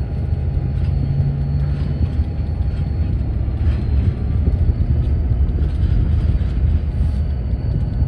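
Great Lakes Central diesel-electric road-switcher locomotives running as they approach at low speed: a steady, loud low engine rumble that builds during the first second and then holds.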